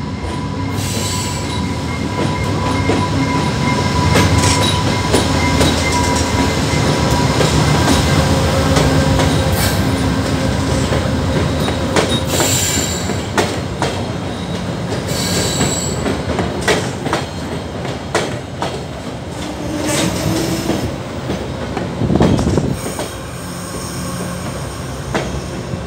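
VIA Rail P42DC diesel locomotive pulling into the station and passing close, its engine rumbling, with a steady thin squeal over it. Then the passenger cars roll slowly past, wheels clicking over rail joints as the train slows on arrival.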